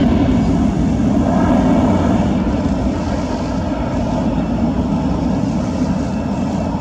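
Airbus A320-214's twin CFM56-5B turbofan engines at climb thrust just after takeoff: a steady low roar, fading slightly as the airliner climbs away.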